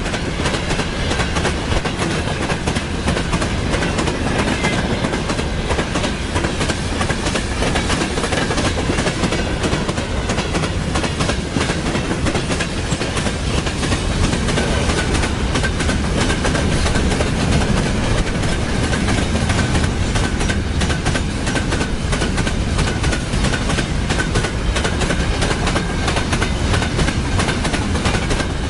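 Freight train wagons rolling past close by, their wheels clattering steadily over the rail joints, with a faint steady high squeal from the wheels.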